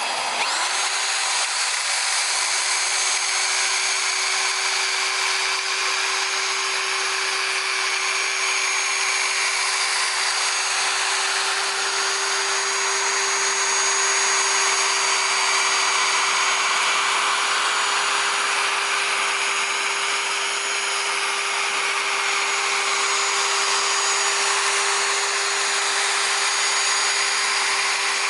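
Electric car polisher with a wool pad, cutting compound into the paint of a fender: the motor starts right at the beginning with a quick spin-up, then runs at a steady whine with the pad hissing against the panel.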